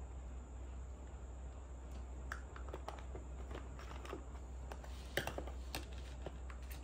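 Small plastic toy kitchen pieces clicking and tapping as they are handled and set down: a loose run of light clicks starting about two seconds in, the loudest about five seconds in.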